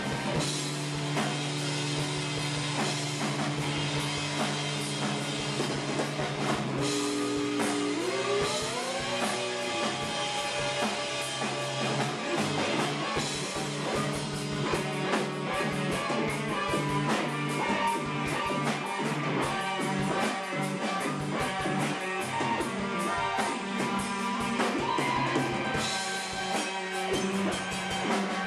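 Live rock band playing an instrumental passage: electric guitar, bass and a drum kit. About seven seconds in, a note slides upward in pitch, and the drumming grows busier from about twelve seconds in.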